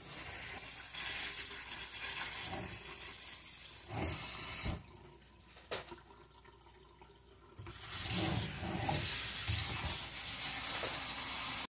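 Kitchen faucet running water onto hot boiled bitter leaves in a stainless steel colander in the sink, the leaves worked by hand as they are cooled. The water stops about halfway through for some three seconds, then runs again.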